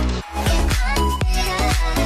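Background dance music with a steady beat.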